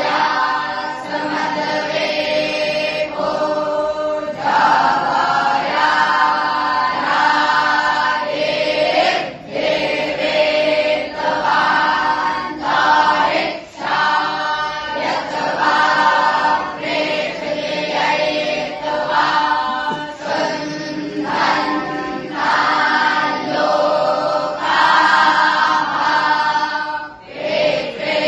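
A group of young Vedic students (batuk Brahmins) chanting mantras together in unison, in sung phrases of a few seconds each with short breaks between them.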